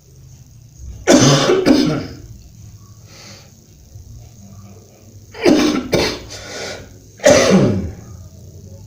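A person coughing in three bouts: two coughs about a second in, a run of about three at about five and a half seconds, and one more near the end.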